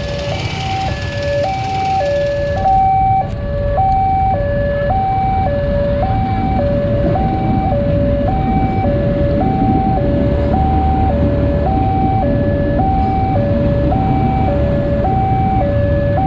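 Railway level-crossing warning alarm sounding a steady two-tone electronic signal, alternating high and low about once a second for each pair, warning of an approaching train. A low engine-and-traffic rumble runs beneath it and grows louder a few seconds in.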